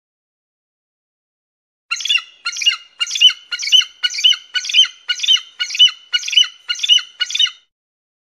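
An eagle calling: a run of about a dozen short, high, piping notes at about two a second. The run starts about two seconds in and stops shortly before the end.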